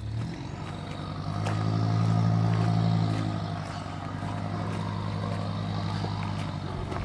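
A motor vehicle's engine running. It grows louder about a second and a half in, then eases back after about three seconds to a steady run.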